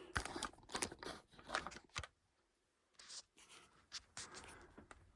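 Faint scattered clicks and light taps of small parts and tools being handled, with a short lull about two seconds in.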